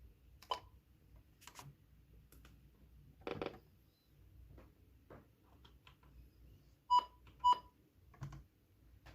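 Scattered small clicks and handling knocks, then two short electronic beeps about half a second apart, the loudest sounds here, like a device's button beeps.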